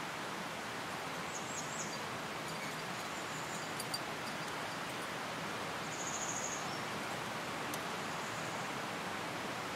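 Steady outdoor background hiss, with faint high-pitched bird chirps a few times, the clearest a short rapid trill about six seconds in.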